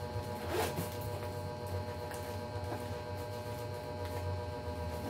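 A handbag's zipper pulled once, a short rasp about half a second in, followed by faint handling of the bag, over a steady low electrical hum.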